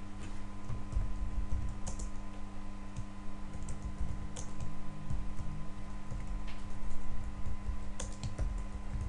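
Computer keyboard being typed on at an unhurried pace, irregular key presses and a few sharper clicks, over a steady electrical hum.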